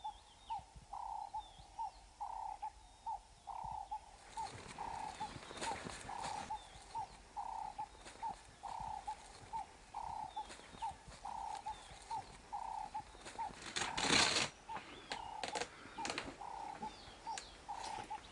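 A bird repeating one short, low note over and over, about three times a second, with faint chirps of other birds. From about four seconds in a crackling, rustling noise joins, loudest around fourteen seconds.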